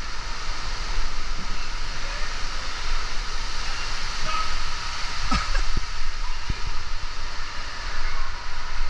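Steady rush of water and motion noise while riding down a water-park slide, with a couple of faint knocks about five to six seconds in.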